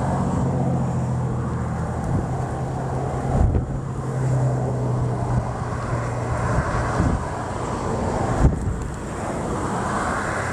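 Wind buffeting the microphone, with a steady low engine-like hum under it that fades out about six seconds in.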